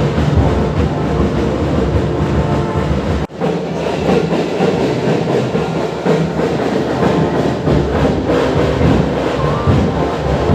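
Background music with held tones over a dense, steady low rumble, briefly cut off about three seconds in before carrying on.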